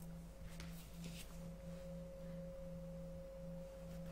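Faint background music: a soft, steady low drone that wavers about twice a second, with a higher steady tone held above it.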